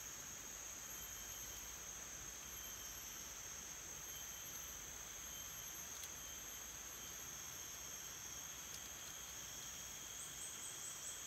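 Steady high-pitched chorus of forest insects, with a few faint clicks.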